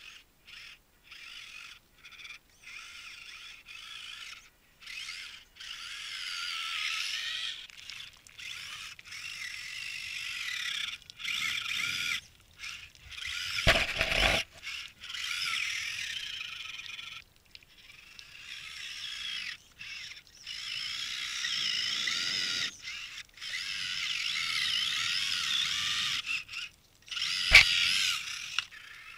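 Losi Trail Trekker RC crawler's electric motor and gears whining in short on-off bursts, the pitch wavering as the throttle is worked while it crawls through dirt. There is a loud knock about halfway through and a sharp click near the end.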